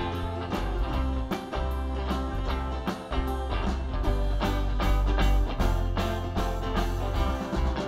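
A small live band playing an instrumental stretch with no singing: strummed ukuleles, electric keyboard and electric bass guitar over a steady beat, with a heavy bass line.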